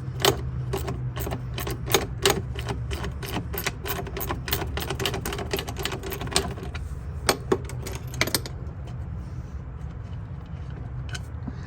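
Hand ratchet clicking in quick, uneven strokes as small bolts are backed out of a fuse box cover, for about eight seconds, then only a couple of clicks near the end. A steady low hum runs underneath.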